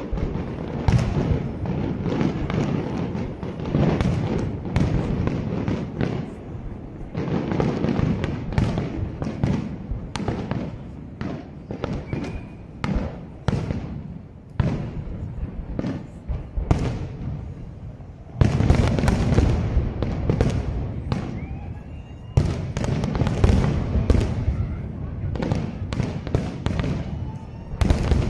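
Fireworks display: aerial shells bursting in quick succession, many sharp bangs over a low rumble, heaviest from about two-thirds of the way through.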